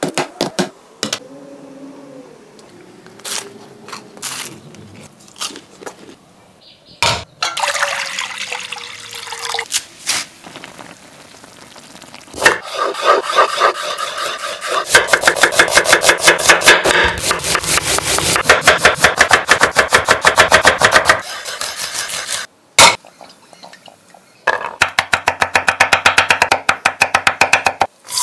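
Food-preparation sounds: bouts of fast, regular tapping and scraping of a kitchen utensil, several strokes a second, with short pauses between the bouts.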